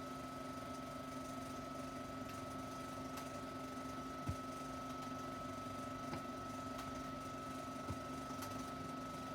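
Steady background noise of a 16mm sound-film print between music cues: a low hum and a high steady tone under hiss, with a few faint pops.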